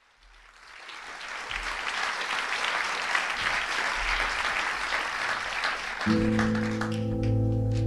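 Audience applause swelling up, then about six seconds in an acoustic guitar strikes a ringing chord as the song begins and the clapping dies away.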